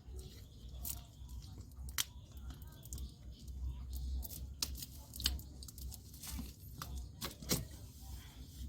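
Scattered rustling, crinkling and sharp clicks of handling noise, like someone shifting about and handling things inside a tent, over a low rumble.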